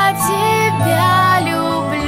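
Children's lullaby music: a melody line moving over held low notes, with no words.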